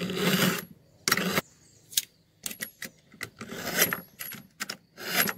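A steel knife blade drawn again and again through a pull-through knife sharpener: about five rasping metal-on-metal strokes with short pauses between, sharpening the edge.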